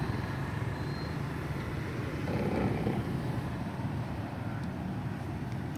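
Steady low rumble of outdoor background noise, swelling slightly a couple of seconds in.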